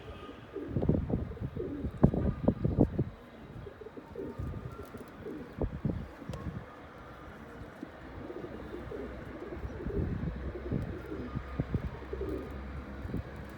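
Domestic pigeons cooing, a run of low coos that is densest in the first few seconds and then goes on more sparsely.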